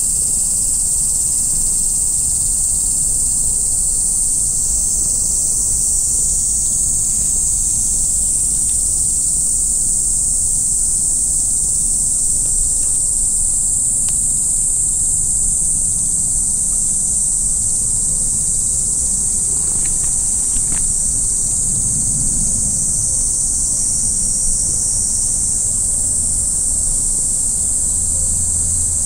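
Steady, high-pitched chorus of insects shrilling without a break, over a low rumble.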